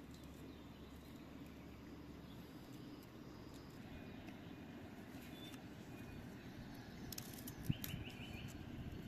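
Quiet rural outdoor ambience: a low steady background with faint bird chirps, including a quick run of repeated chirps near the end. A few faint clicks and one sharp knock come about three quarters of the way in.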